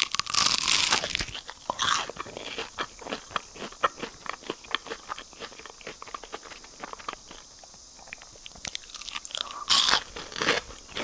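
Crunchy bites and chewing of a once-fried battered sweet potato fritter, close up. A loud crunch at the first bite is followed by another about two seconds in, then a run of small crisp crackles while chewing, and a fresh crunch near the end.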